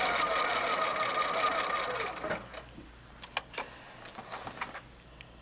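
Electric home sewing machine stitching a seam, its motor whine steady, then winding down and stopping a little over two seconds in. A few faint clicks follow.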